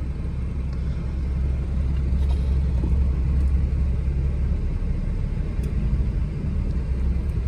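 Suzuki Cultus engine idling steadily at about 1100–1200 rpm, heard from inside the cabin as a low, even sound. The idle is sitting higher than the owner wants, which the mechanics put down to a worn ("cut") throttle body.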